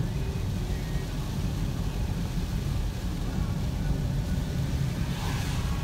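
Steady low rumble of a car's engine and tyres on a wet road, heard from inside the cabin, with a brief swish about five seconds in.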